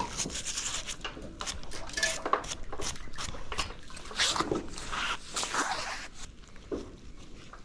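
Irregular rustling, scraping and clicking as hands handle a magnet-fishing magnet, its rope and a cloth close by, with clothing brushing near the microphone.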